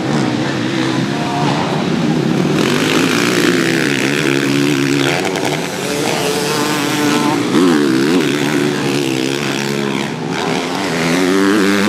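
Several motocross bike engines revving hard at once, their notes rising and falling as riders accelerate, shift and back off over the jumps.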